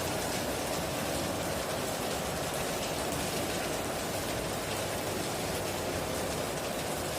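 Heavy rain falling steadily on a tin roof, an even, unbroken hiss of drops.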